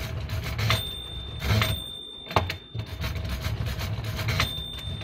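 Tiger hand-cranked pinwheel mechanical calculator being worked: the crank turns and the gears rasp and whir, with several sharp clacks as it cycles and the carriage shifts. The machine is dividing by repeated subtraction.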